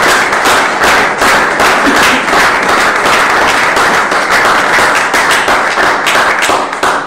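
Audience applauding, many hands clapping densely and loudly, dying away at the very end.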